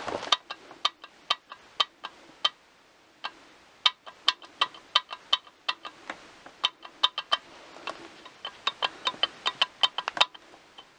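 Light metal-on-metal taps and clinks, dozens of sharp short hits with a slight ring, coming irregularly in clusters with brief pauses. This fits small tools and engine parts being handled and tapped against the metal crankcase.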